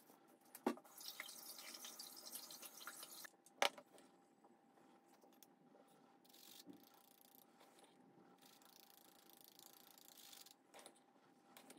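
Faint kitchen handling sounds: a gritty rustle of fingers rubbing butter into flour in a glass bowl, set off by two sharp clicks, then soft hissing as caster sugar is added and shaken through a mesh sieve.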